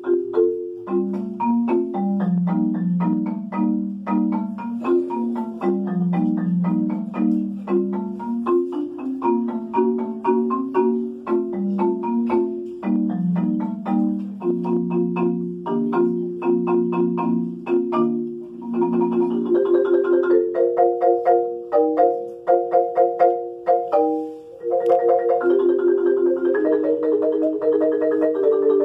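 Solo marimba played with four mallets: a steady, rippling stream of struck wooden-bar notes forming broken chords in the low and middle range. About two-thirds of the way in, the figures climb higher and grow louder, with a brief drop before a fuller passage near the end.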